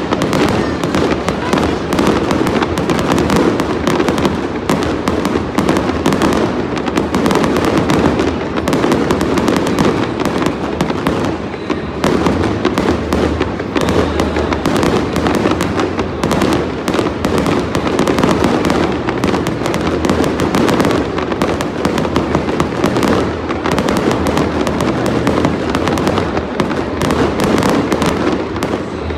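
Aerial fireworks display going off in a rapid, unbroken barrage of bangs and crackles.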